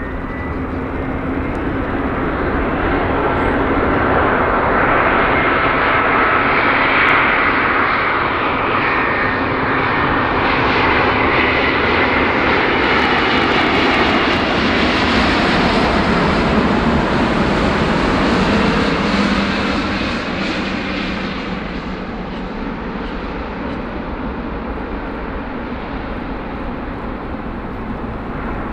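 Airbus A350-900's Rolls-Royce Trent XWB turbofans at approach power as the airliner comes in to land: jet noise with a high whine that swells as the aircraft passes close, with tones falling in pitch as it goes by. It then eases off to a lower, steady rumble.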